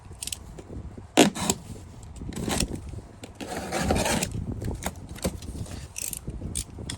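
PC parts and their boxes being handled: a sharp knock about a second in, a second click just after, then scraping and rustling.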